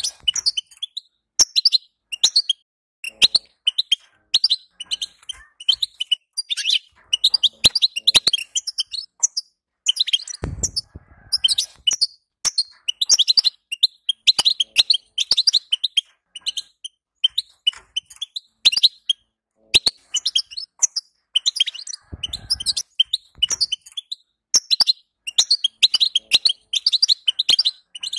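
European goldfinch twittering: bursts of rapid high chirps and trills, broken by pauses of about a second. Two brief low rustles come in, about ten seconds in and again near twenty-two seconds.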